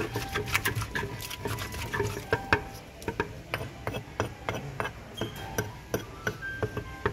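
Wooden pestle and metal spoon knocking and scraping against a large wooden mortar as papaya salad is tossed and mixed: irregular clacks, a few each second, with a few short clinks of the spoon.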